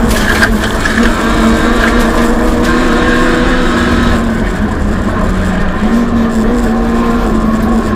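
Rally car engine pulling hard at high revs, heard from inside the stripped cabin, with road and tyre noise underneath. Its pitch holds steady, dips briefly a few times and climbs again.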